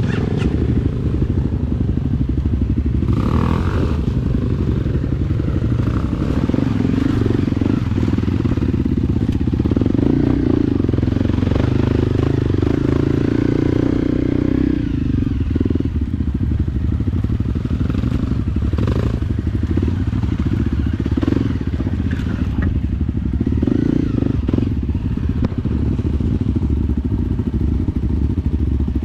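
Motorcycle engine running steadily while riding, a little louder for a few seconds mid-way, with occasional clatter and knocks.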